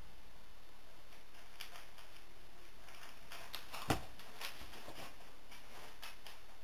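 A handheld training clicker gives one sharp click about four seconds in, marking the horse's nose touching the target. Quieter small clicks and rustles come and go around it.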